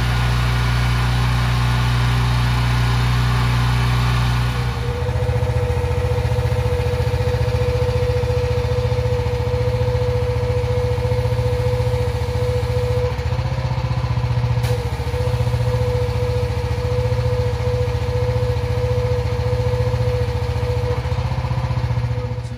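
Honda petrol engine driving a 3,600 PSI pressure washer, running at a steady speed while water jets from the lance. About five seconds in the hiss drops away and a steady whine holds over the engine, which stops abruptly at the end.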